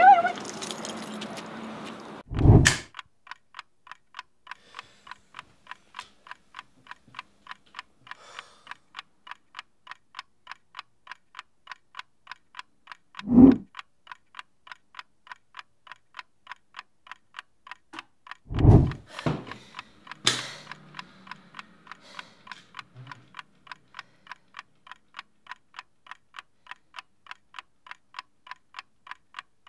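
A chess clock ticking steadily, about two ticks a second, over a dark, otherwise quiet room. Heavy low thumps cut in about two and a half seconds in, near the middle, and twice more about two-thirds of the way through.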